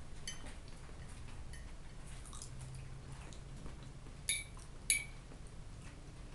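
Close-up eating: a person chewing fried potatoes while a metal fork scrapes and taps on a plate, with two sharper ringing clinks of fork on plate a little after four and five seconds in.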